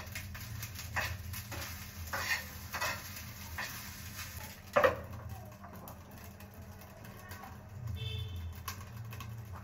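Metal spatula knocking and scraping in a frying pan of rice a few times, with one louder metal clank about five seconds in, over a low steady hum.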